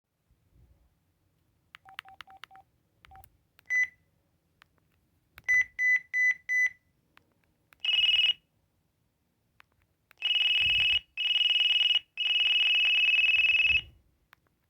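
Electronic beeps from an LG VX5200 cell phone's speaker: four quick low beeps and a single one, then a few short higher beeps, then one half-second high tone and three long high tones.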